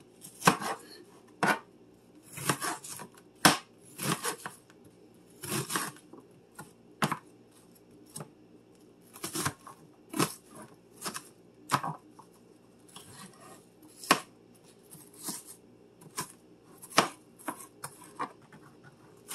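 Large kitchen knife dicing an onion on a cutting board: irregular sharp knocks of the blade against the board, about one or two a second.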